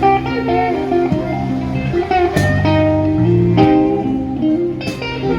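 Live blues band playing an instrumental passage between sung verses, the guitar to the fore over a steady bass line and beat.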